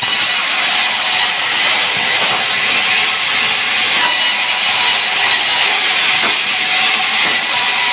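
Sawmill saw running through sengon (albizia) wood, a steady hissing whir that holds at an even level throughout.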